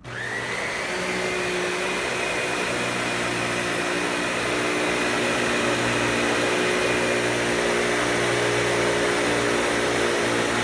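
Dyson DC65 Animal upright vacuum cleaner switched on, its motor whine rising over the first second and then running steadily.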